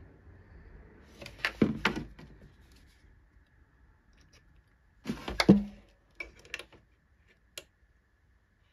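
A hand-held hot-staple plastic welder being handled against a plastic motorcycle fairing: two short clusters of clicks and knocks, about a second in and about five seconds in, then a few single clicks, with a faint steady high whine underneath.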